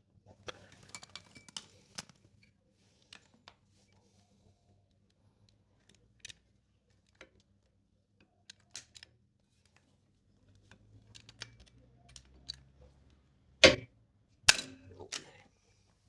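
Light clicks and metallic handling of a hand pop rivet gun, rivet and washer, then two loud sharp snaps a little under a second apart near the end.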